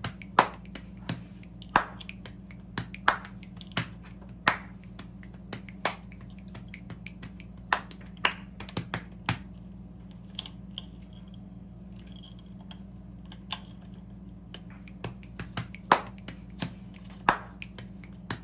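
Sharp, irregular clicks and taps of small metal parts handled close up: a brake cable's end and barrel adjuster being worked into a bicycle brake lever, over a steady low hum.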